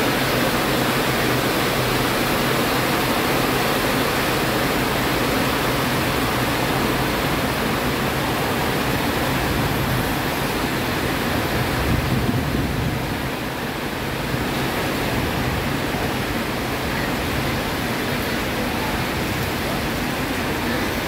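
Heavy rain pouring down in a steady, dense hiss, at full strength again after a brief lull.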